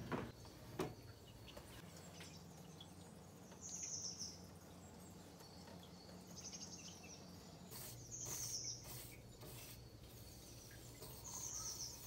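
Recorded songbird ambience: short high chirps every two or three seconds over a steady low hum. Two sharp knocks in the first second are the loudest sounds.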